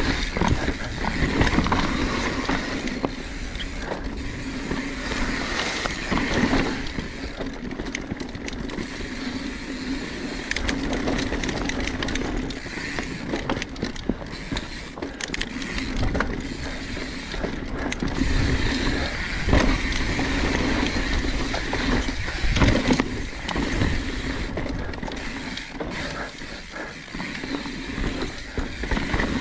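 Mountain bike riding down a dirt singletrack: a continuous rush of tyre and wind noise with frequent clattering knocks and rattles as the bike goes over bumps and roots.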